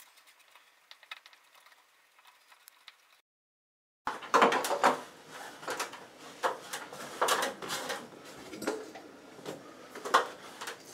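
Handling noise: a few faint ticks, a moment of dead silence, then a run of irregular clicks, knocks and light scrapes from about four seconds in.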